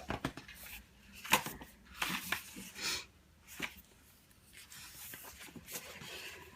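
Pages of a hardcover photo book being turned and handled: several short paper rustles and light taps, then a softer stretch of rustling.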